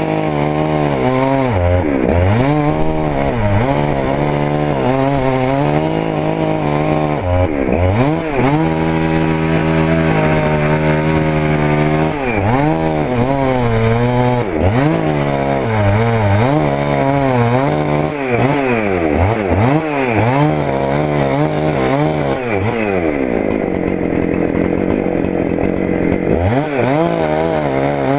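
Gas chainsaw engine running continuously, its tone wavering.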